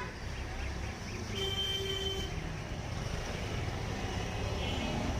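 Street traffic noise, a steady low rumble of passing vehicles, with a vehicle horn sounding once, for under a second, about a second and a half in.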